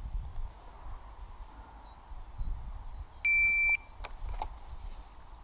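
Shot timer sounding one steady, high beep about half a second long, a little over three seconds in: the start signal for a timed string of fire. A faint low rumble runs underneath.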